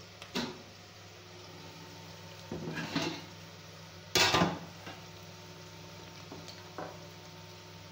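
A metal cooking pot knocking and clattering a few times on the stove, the loudest clatter about four seconds in, over a steady low hum.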